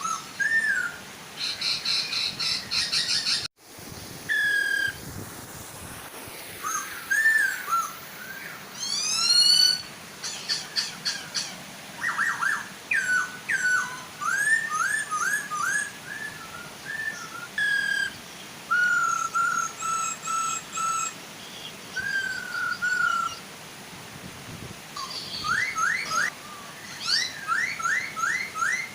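Poksay hongkong laughingthrushes singing: loud whistled phrases of rising and falling notes and quick runs of upswept notes, over the steady soft rush of a waterfall.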